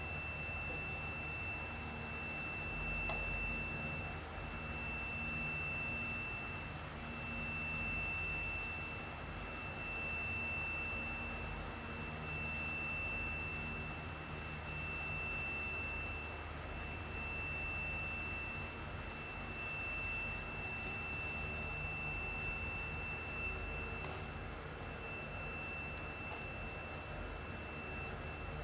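A steady, unbroken high-pitched electronic tone like a piezo buzzer sounding continuously, over a low hum.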